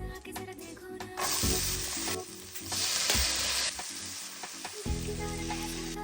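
Food sizzling in hot oil in a pan for a mushroom masala. The sizzle starts suddenly about a second in, is loudest through the middle and dies down after about four seconds.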